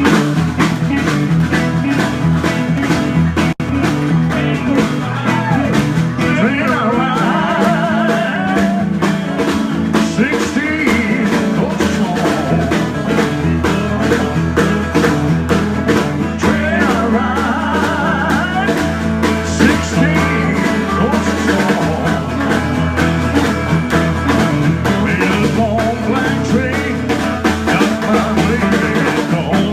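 Live band playing an up-tempo blues/rock-and-roll number, electric guitar over bass and drums, with a brief dropout about three and a half seconds in.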